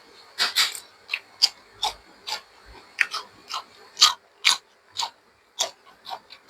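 A person chewing food with open-mouthed crunching and smacking: a quick, uneven run of sharp clicks, about two a second.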